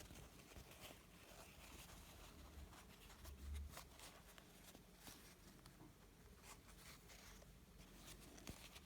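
Near silence with faint scratchy rustles and small ticks of fabric and ribbon being handled during hand-stitching of a bow, over a low hum.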